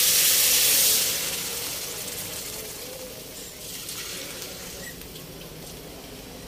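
Water poured into a hot wok of sautéed pork, garlic, onion and carrots: a loud sizzling hiss for the first second that dies down steadily over the next few seconds as the oil cools.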